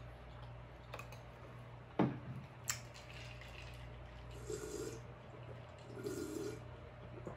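Two gulps of ice water swallowed from a glass, each lasting about half a second. They follow a sharp knock about two seconds in, the loudest sound, likely a fork set down in a glass bowl.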